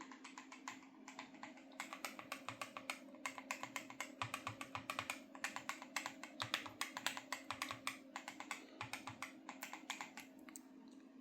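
Typing on a mechanical keyboard with Cherry switches and 3D-printed keycaps: a quick run of key clicks, several a second, stopping shortly before the end. A steady low hum runs underneath.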